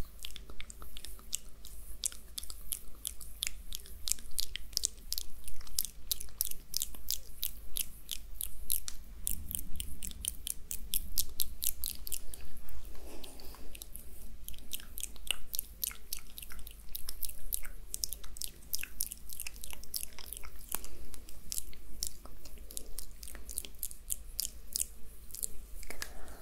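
Oiled hands rubbing and pressing together close to the microphone in an ASMR face massage, making a rapid, continuous stream of sticky clicks.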